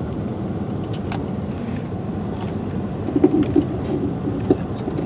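Steady engine and road noise heard from inside a moving coach, with a few louder knocks and rattles about three seconds in and one more a second or so later.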